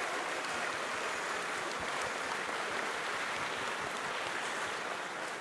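Crowd applauding: a steady wash of many hands clapping.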